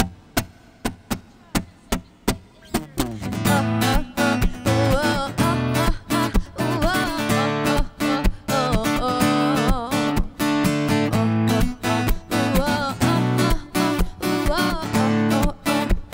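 Acoustic guitar strummed live: a few separate strums at first, then a steady strumming rhythm from about three seconds in, with a wordless singing voice gliding over it.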